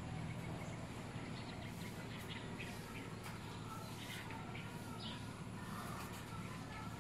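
Birds chirping in short, scattered calls over a steady low background hum.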